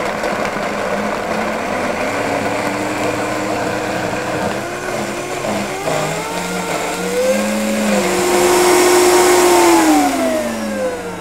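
Optimum high-speed blender motor running, blending soaked cashews, water and coconut oil into a smooth cashew cream while the tamper pushes the mix into the blades. Its pitch rises in the middle and it is loudest a little after eight seconds, then the pitch falls near the end as the speed is turned down.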